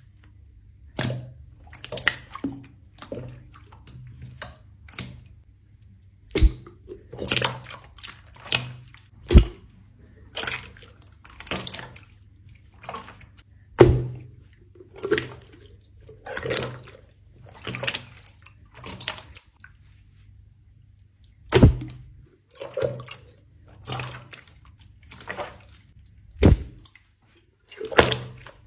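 Water slime being squished and pressed: a string of wet squishes and pops about once a second, with a few sharper, louder pops among them.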